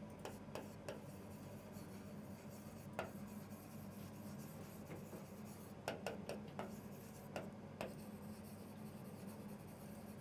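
Faint scratching and tapping of a pen writing on a board, with a few sharper taps about six and seven and a half seconds in.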